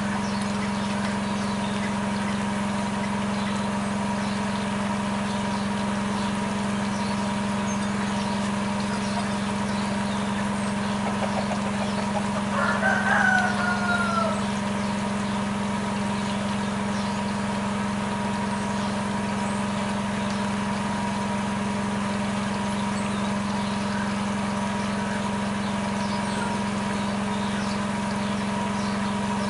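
A steady low mechanical hum runs throughout. About twelve seconds in, a chicken gives one drawn-out call of about two seconds that falls in pitch at the end.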